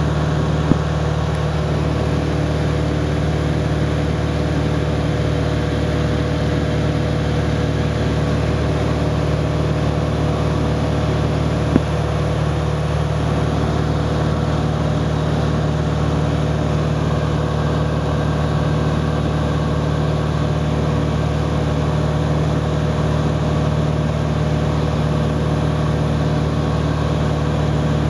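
Steady drone of a light high-wing airplane's piston engine and propeller, heard inside the cabin in cruise. Two short clicks sound about a second in and about twelve seconds in.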